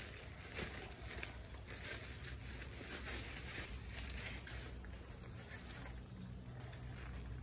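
Plastic bag rustling and crinkling in irregular bursts as a folded fabric cover is pulled out of it and opened up, over a steady low hum.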